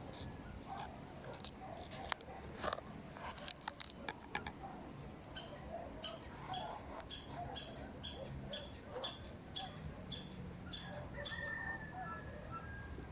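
Wild birds calling: a rapid series of short, high pips, about two a second for several seconds, then a thin whistle that falls slightly in pitch near the end. A few sharp clicks come before the calls.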